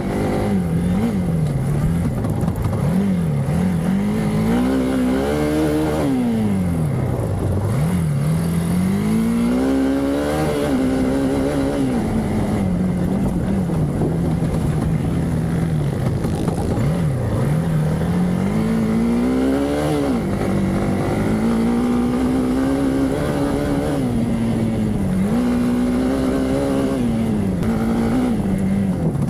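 Hero Xpulse 200's single-cylinder 200 cc four-stroke engine under hard riding off-road: the pitch climbs under throttle and drops back again and again as the rider accelerates, shifts and backs off.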